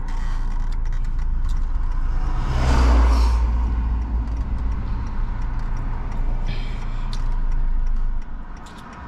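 Steady low rumble of a car driving, swelling about three seconds in and falling away near the end.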